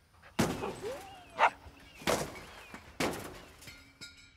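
Three sharp cracks, the first about half a second in and the others about a second apart, each trailing off quickly. Short, higher yelping cries come in between.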